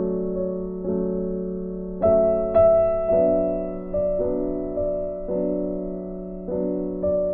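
Background music: a soft piano playing slow chords, each struck and left to ring as the next one comes in about every second.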